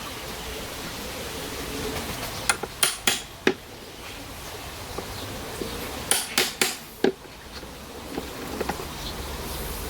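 Round hammer striking an old steel chisel as it cuts a mortise in wood. The blows come in two groups of about four, a few seconds apart, followed by a few lighter taps.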